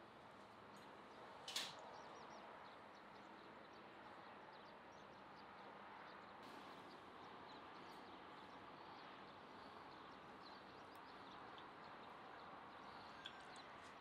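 Near silence: a faint, steady background hiss, with one short sharp click about a second and a half in.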